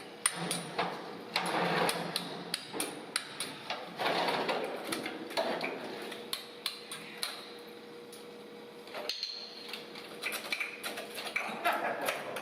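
Irregular knocks and clinks of hand-tool work on the parts of an old tram car, with a few longer noisy stretches in between.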